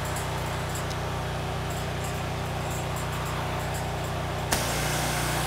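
Pressure washer engine running steadily in bypass with the trigger gun released. About four and a half seconds in the trigger is pulled: a sudden hiss of high-pressure water spraying through a size 8 nozzle starts, and the engine note changes as it takes the load.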